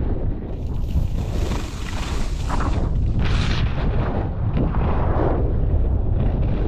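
Wind buffeting the microphone as a skier runs downhill, a steady heavy rumble, with swelling hiss and scrape of skis carving on packed snow, loudest about three and a half seconds in.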